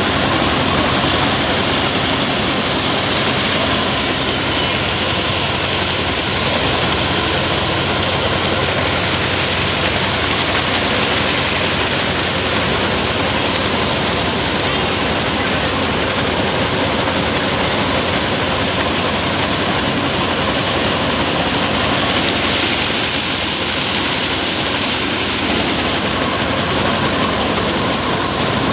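Paddy thresher running steadily while rice straw is fed in: a loud, even rush from the threshing drum and fan over the low, regular beat of the tractor engine beside it.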